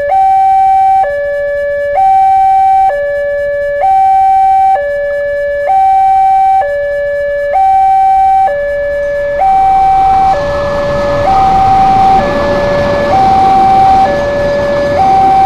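Railway level-crossing warning alarm sounding a two-tone electronic chime, alternating a higher and a lower tone about once a second. About nine seconds in, the rushing rumble of the Argo Bromo Anggrek express train passing over the crossing rises beneath the alarm.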